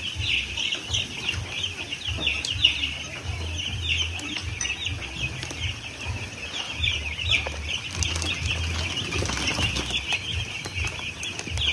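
A large flock of week-old chicks peeping continuously, many short, high, falling cheeps overlapping into a steady chorus.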